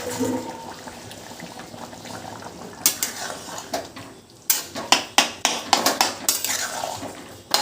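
Metal kitchen utensils clinking and scraping against pots, with a quick run of sharp clinks in the second half.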